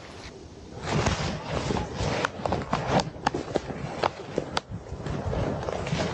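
Footsteps and rustling through woodland undergrowth, with many irregular crackles and snaps of twigs and dry leaves, starting about a second in.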